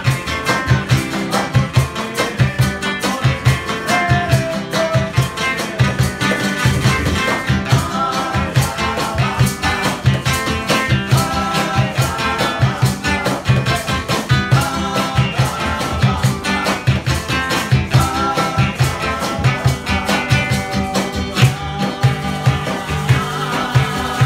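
Live Latin American band playing: two acoustic guitars strummed and picked over a steady cajón beat, with maracas shaking.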